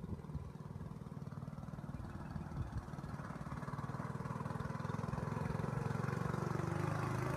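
Mini bike's small engine running with a fast, even pulse, growing steadily louder.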